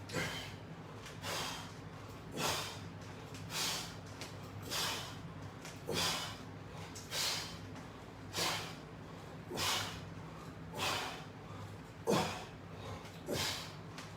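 A person breathing hard through an exercise set: sharp, forceful exhales in a steady rhythm, about one every 1.2 seconds, the last few with a low falling grunt in them.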